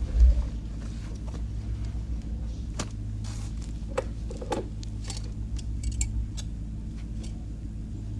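Polaris Slingshot running at a steady low idle, with a thump about a quarter second in and scattered light clicks and rattles.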